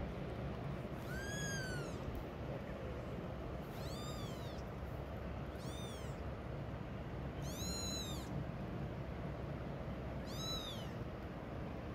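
Young kitten mewing five times in high-pitched calls, each rising then falling in pitch, about two seconds apart.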